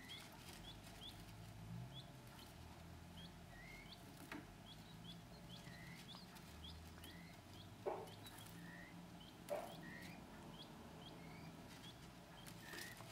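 Button quail chicks peeping: a scatter of faint, short high peeps, one or two a second, with a few light knocks in between.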